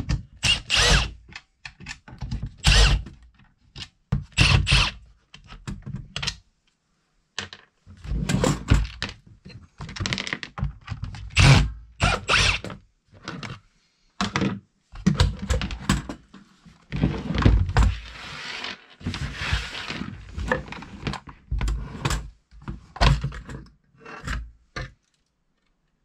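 Screws being backed out of a plastic electric hedge trimmer casing with a cordless drill-driver in short runs, amid knocks and clatter as the screws, cover and two-piece plastic shell are handled and pulled apart.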